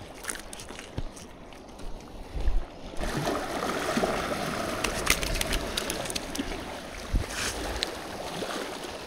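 Small waves washing and lapping over a rocky shore ledge, fuller from about three seconds in. Scattered light clicks and a few dull knocks come from hands working on the rock unhooking a fish.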